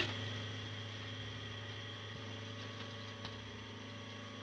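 Electroencephalograph chart recorder running with a steady low mechanical hum as its pens trace on the moving paper, with a sharp click right at the start.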